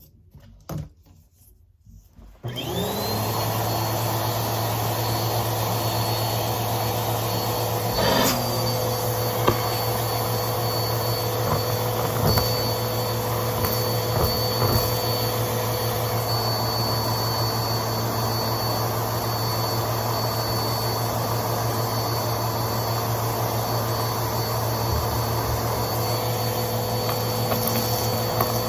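Vacuum cleaner switched on about two and a half seconds in, its motor whine rising and then settling into a steady run. Occasional knocks and clicks sound over it as crunchy debris is sucked up.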